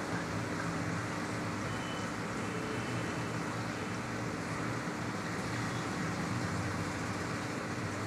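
Aquarium air pump running with a steady hum, and air bubbles from the airstone streaming up through the tank water with a steady hiss.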